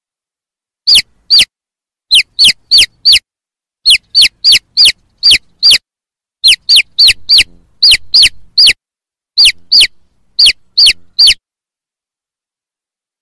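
Chicks peeping: about two dozen loud, high peeps, each sliding down in pitch, in quick runs with brief pauses between.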